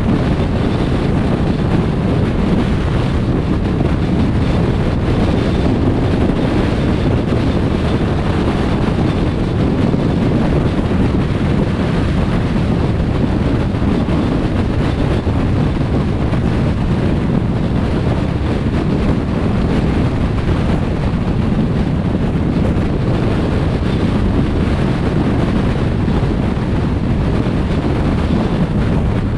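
Steady road and wind noise of a car driving: a constant low rumble of tyres and rushing air that holds even throughout, with no separate knocks or tones.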